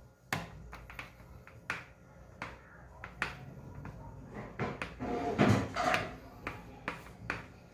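Plastic rolling pin flattening bread dough on a granite countertop: scattered light knocks and taps as the pin and hands meet the stone, busier and louder a little past the middle.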